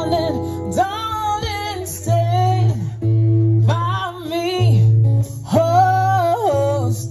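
A woman singing live into a microphone over an acoustic guitar accompaniment, in four long phrases with sliding, wavering notes.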